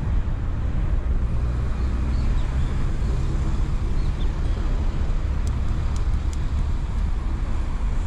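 Steady wind rumble on the microphone and road noise from riding a bicycle through city streets.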